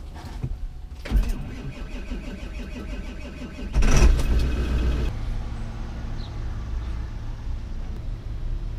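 Car engine being started: cranking begins about a second in, the engine catches with a brief rev, the loudest moment, about four seconds in, then settles into steady running.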